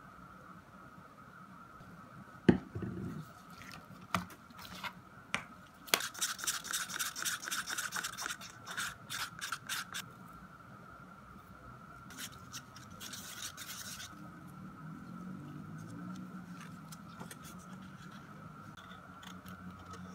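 Hand-working sounds of resin crafting with a stirring stick, a paper cup and metal tweezers in a glitter bottle. A sharp knock comes about two and a half seconds in, then several seconds of quick rubbing and scraping strokes, another short scraping burst a little later, and a softer, lower rustle after that. A faint steady high hum runs underneath.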